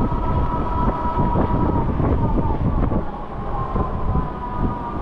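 Haoqi Camel cargo e-bike riding on asphalt: a steady high whine from its electric motor, sagging slightly in pitch and rising again as the ride goes on, over tyre rumble and wind buffeting the microphone.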